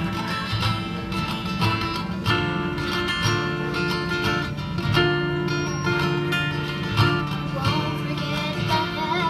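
Acoustic guitar strummed through chords, with a young girl's singing voice coming in near the end.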